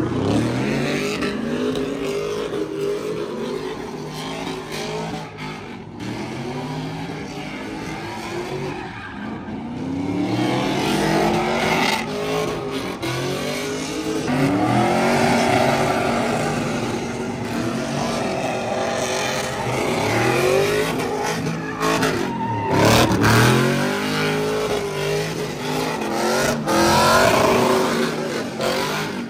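Pickup truck doing a burnout: the engine revs up and falls back again and again while the spinning tires squeal.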